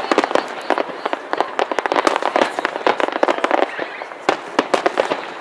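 Aerial fireworks shells bursting in quick succession: a dense run of sharp bangs and pops, with a brief lull about four seconds in.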